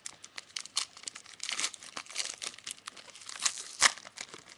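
Crinkling and tearing of a trading-card pack wrapper being handled and opened, an irregular run of crackles with a sharper crackle near the end.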